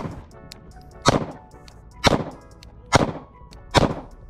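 Glock 9mm pistol fired five times in slow, deliberate succession, about one shot a second, each shot with a short echoing tail.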